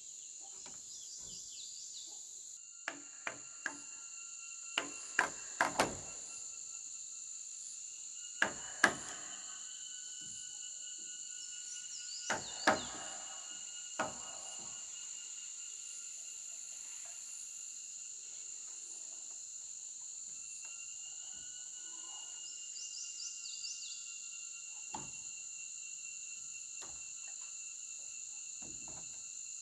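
Irregular sharp wood-on-wood knocks of roof-frame timbers being worked and fitted. They come in small groups of two or three during the first half, then once more later. A steady high insect chirring runs underneath.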